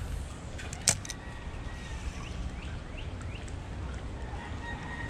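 Spinning reel being cranked to retrieve a small sinking jerkbait, giving a thin, steady whir after a sharp click about a second in; the whir stops for a while and comes back near the end. A low, steady rumble lies underneath.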